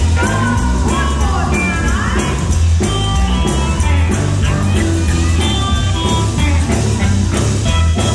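Live gospel band playing loudly, with heavy bass and drums. Voices sing over the band in the first couple of seconds.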